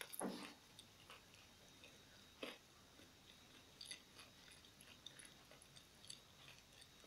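Faint chewing and mouth sounds: soft wet smacks and small clicks, the loudest about a quarter second in and again about two and a half seconds in.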